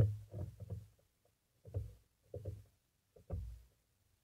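Muffled bumps and knocks on an underwater camera's waterproof housing as common carp nudge and brush against it: a loud knock at the start, then four short bouts of dull bumping with quiet gaps between.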